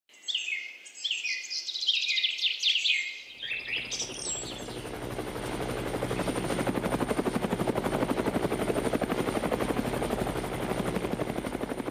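Birds calling with quick falling whistles for about three seconds, then a helicopter comes in, the rapid beat of its rotor blades growing louder and holding steady.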